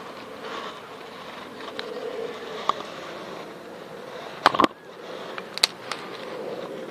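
Knife blade shaving thin curls off a split stick of firewood to make a feather stick, a steady scraping. A quick cluster of sharp clicks comes about four and a half seconds in, and another about a second later.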